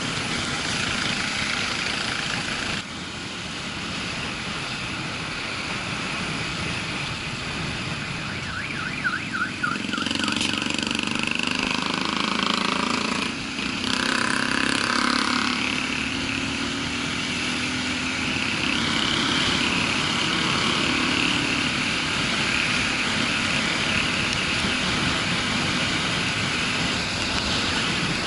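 Motorcycle riding at road speed, heard from the bike: a steady rush of wind noise mixed with the engine. About halfway through there are a few brief pitched sounds over the rush.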